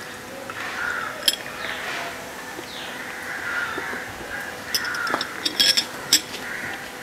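Sprite, a lemon-lime soda, poured from a plastic bottle into two glasses over ice, fizzing as it foams up. Crows caw in the background, and a few sharp clicks come near the end.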